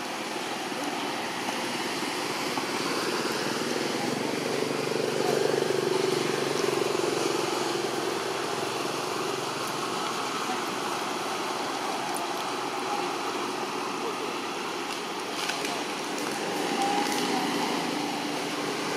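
Steady outdoor background hum, like distant traffic, with faint indistinct voices.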